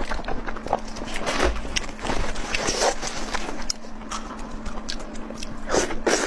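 Close-miked eating sounds: wet chewing and lip-smacking, with quick irregular clicks as food is bitten and chewed.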